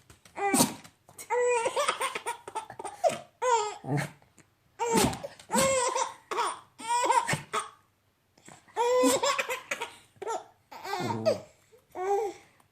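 Baby laughing in a string of short, high-pitched bursts, with a longer pause about eight seconds in.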